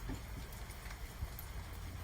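Rain falling during a thunderstorm, with scattered drops tapping close by over an even hiss and a steady low rumble underneath.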